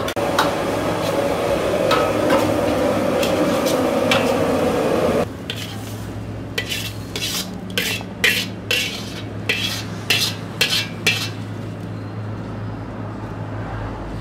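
Metal ladle stirring and scraping kottu around a steel wok over a gas flame, with the food sizzling. About five seconds in this cuts off, leaving a steady low hum and a run of sharp clinks of a metal ladle against a ceramic plate as the kottu is served.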